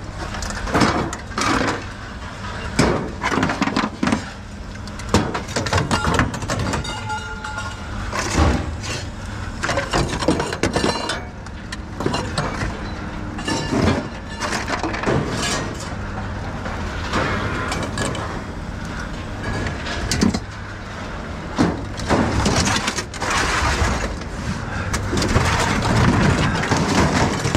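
Scrap metal being unloaded from a pickup truck bed: repeated clanging and clattering as metal pieces are thrown down and dragged across the steel bed, with a steady low hum underneath.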